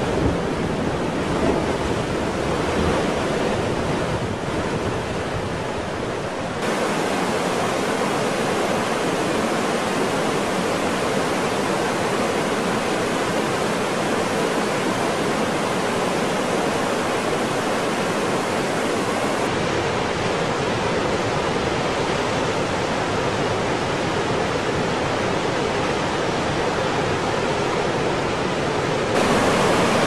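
Surf breaking and churning against rocks, with a deep rumble and a couple of surges. About six seconds in it gives way abruptly to the steady rush of a waterfall, which changes in tone twice more as different falls and cascades take over.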